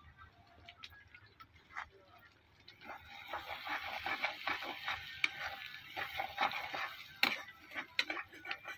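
Masala of onion, chilli and ginger-garlic paste frying in oil in a kadai, with a spatula scraping and clicking against the pan as it is stirred. Faint at first; the sizzle and scraping pick up about three seconds in.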